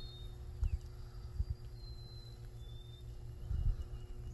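Low, uneven rumble of wind and handling on a phone's microphone, with a few soft thumps. A few faint, thin, high whistles come through now and then.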